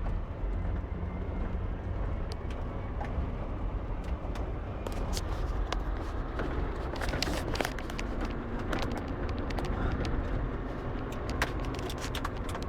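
Daihatsu rally car driven off-road, its engine running with a steady low rumble. From about five seconds in, a run of sharp knocks and clatters sounds over it.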